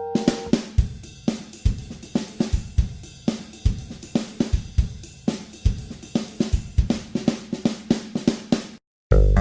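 Background music: a drum-kit break of snare, hi-hat and bass drum in a steady beat. A held chord fades out at the start, and after a short gap near the end the full band comes back in.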